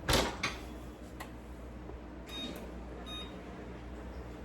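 Oven control panel beeping as the broil setting is keyed in: a couple of short, high electronic beeps a second or so apart, after a clunk at the start, over a steady low hum.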